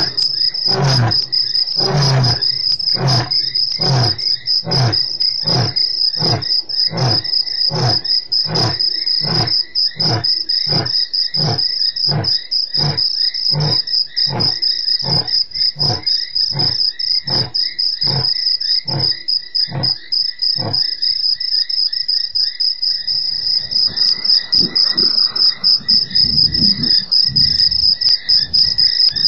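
Male lion's roaring bout tailing off in a long run of deep grunts, about two a second, growing weaker until they die out about two-thirds of the way through. Crickets chirr steadily and high-pitched throughout. Near the end a low rumbling sound builds.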